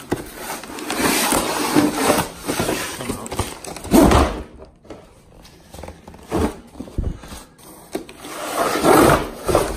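Plastic Tred Pro recovery boards being tipped and slid out of their cardboard box: a long scrape and rustle of plastic against cardboard, then a heavy knock about four seconds in as they drop onto the concrete floor. A few lighter knocks and another scrape follow near the end.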